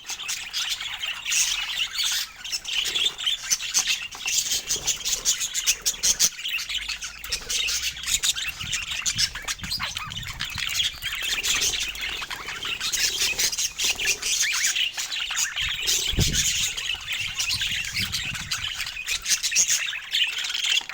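Budgerigars chattering, a steady stream of quick chirps and squawks.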